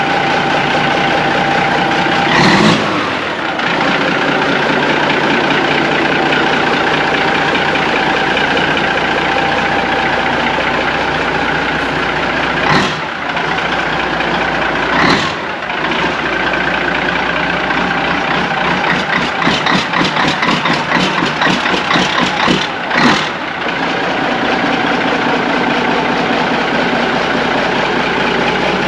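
Big-rig diesel engine, a Caterpillar 3406, running steadily just after being started. A few short, sharp bursts come about 2.5, 13, 15 and 23 seconds in, and there is a stretch of rapid pulsing from about 19 to 23 seconds in.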